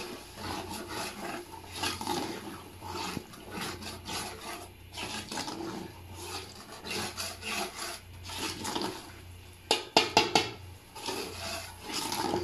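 A metal spoon stirring thick, wet masala in a metal cooking pot, scraping the bottom and sides in repeated strokes. About ten seconds in come a few louder, sharp knocks of the spoon against the pot.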